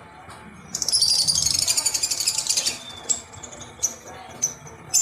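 A toy rattling and jingling quickly for about two seconds, then several short jingles.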